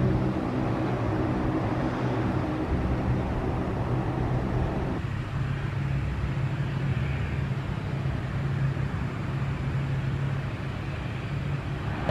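Turboprop aircraft engines and propellers droning steadily: first the four turboprops of a Lockheed C-130 Hercules on the runway, then, after an abrupt change about five seconds in, the lower, duller propeller drone of an ATR twin-turboprop airliner rolling along the runway.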